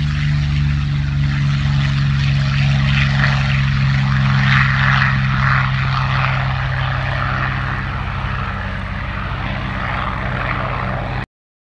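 Yakovlev Yak-3M fighter's Allison V-1710 V12 piston engine running at high power with propeller noise as the plane takes off, a steady deep drone that eases slightly in the last few seconds and then cuts off suddenly.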